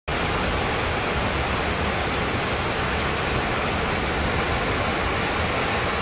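Waterfall pouring over a rock ledge into a pool: a steady, loud rush of falling water.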